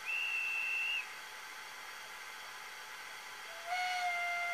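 Sound decoder of a Brawa 40411 model PKP Pt31 steam locomotive playing whistle sounds through its small onboard speaker: first a short, high single-tone whistle of about a second, then, near the end, a longer, lower multi-tone steam whistle that slides up slightly as it starts. A steady faint hiss lies under both.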